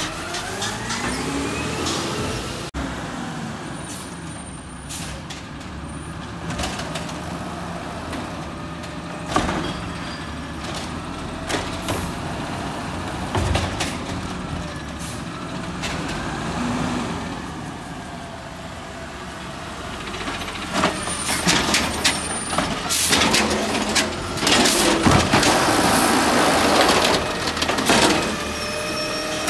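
Automated side-loading garbage truck: its diesel engine runs and rises in pitch as it pulls away, with short air-brake hisses as it stops along the kerb. Near the end comes the hydraulic lifting arm raising a recycling cart, and the cart banging and clattering as it is shaken out into the hopper.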